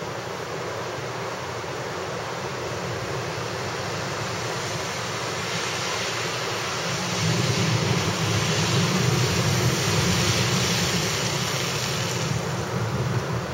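Steady hiss of heavy, wind-driven rain. About halfway through it swells louder, with a low rumble, for several seconds.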